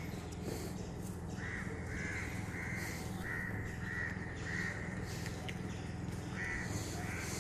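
A bird calling over and over, short calls about two a second with a pause a little past the middle, over a low steady hum.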